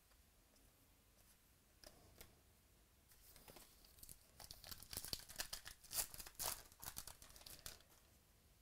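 A 2018 Panini Classics football card pack's wrapper being torn open, with a dense run of crackling and crinkling that starts about three seconds in and lasts roughly four seconds. A couple of light clicks from the cards in hand come before it.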